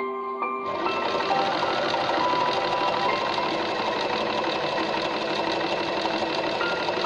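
Usha Janome Wonder Stitch Plus electric sewing machine starting about half a second in and running steadily, stitching with rapid needle strokes. Background music with sustained tones plays throughout.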